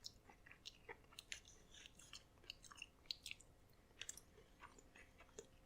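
Faint close-up chewing of a mouthful of corn kernels: soft, irregular wet clicks and crackles, many small ones scattered through.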